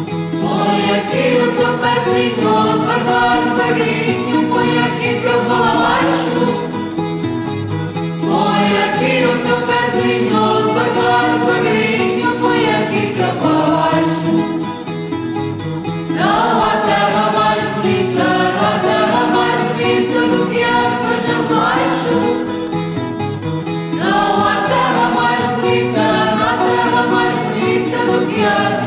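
Background music: a song with voices singing together in phrases over guitar accompaniment.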